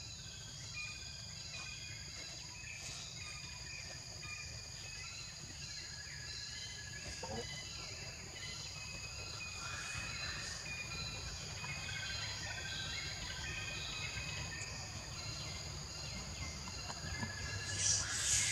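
Steady high-pitched drone of a forest insect chorus, with repeated short chirps over it and a low steady rumble underneath. A short burst of rustling noise sounds near the end.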